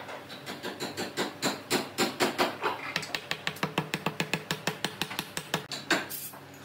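Rapid series of sharp knocks, about eight a second, over a steady low machine hum; the knocks stop shortly before the end.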